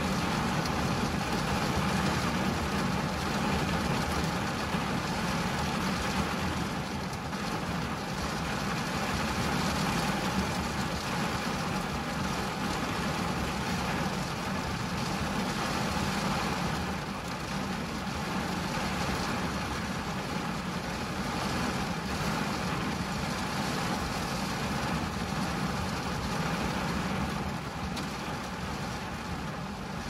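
Steady rain falling on a car's windshield and roof, heard from inside the car, over a low steady rumble.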